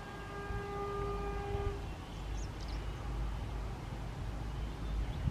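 Horn of an approaching Indian Railways locomotive sounding one steady blast of about two seconds, over a low rumble from the train.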